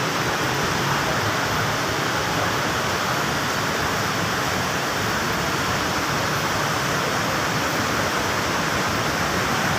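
Steady, even rushing noise that holds unchanged throughout, with no rhythm or distinct events.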